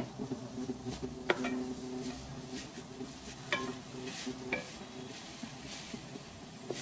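Wooden spatula stirring and scraping crumbled mawa (khoya) around a dry stainless steel kadhai as it is roasted on low heat, with a faint sizzle. The spatula knocks sharply against the pan three times.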